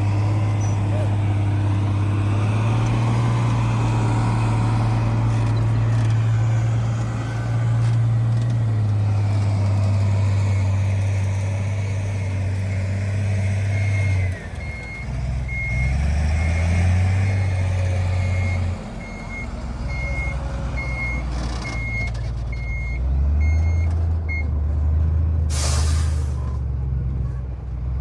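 Heavy construction machine's diesel engine running, its pitch shifting up and down several times. A reversing alarm beeps steadily for about ten seconds midway, and near the end there is one short, loud burst of hissing air.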